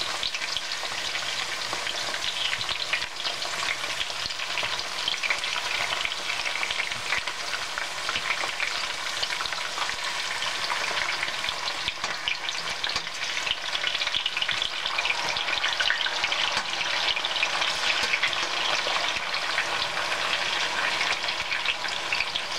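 Sweet potato wedges sizzling and crackling steadily in hot oil in a stainless steel pan while they are turned over with a fork and a wooden spatula.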